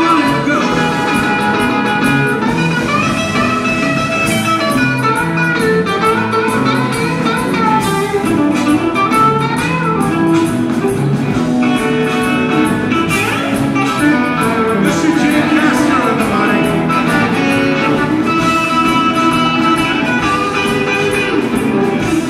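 Live band jamming: electric guitars playing over a bass line and drums, with no break.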